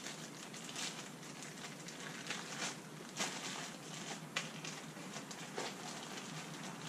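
Blue plastic tarp crinkling and rustling as it is handled and tied by hand, with irregular small crackles.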